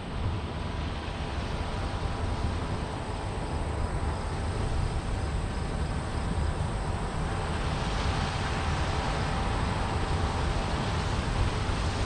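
Steady low mechanical rumble mixed with wind noise on the microphone, with a faint steady whine; the hiss turns brighter over the last few seconds.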